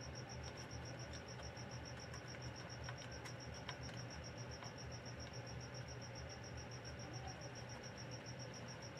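Faint high-pitched chirping, pulsed very evenly several times a second, over a low steady hum.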